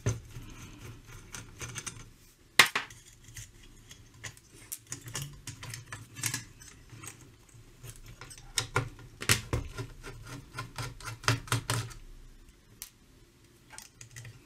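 Irregular light metallic clicks and clatter from screws being undone with a nut driver and a steel bracket being worked loose on a Bush VHF90 valve radio's metal chassis. One sharper click comes about two and a half seconds in, and the clicking is busiest in the middle.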